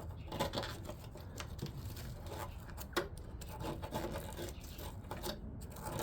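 Hand tools scraping and picking at a rust-seized metal sleeve in an air conditioner compressor's rubber mount: irregular scrapes and short metallic clicks, the sharpest about three seconds in. The rubbing is rust packed between the sleeve and the mount being worked loose.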